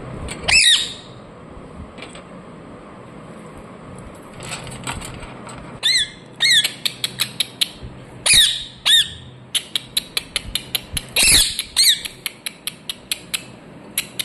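Indian ringneck parrot calling: a few loud, short squawks, one about half a second in and several more between about six and twelve seconds. Amid the later squawks comes a rapid string of short, sharp chirps, several a second.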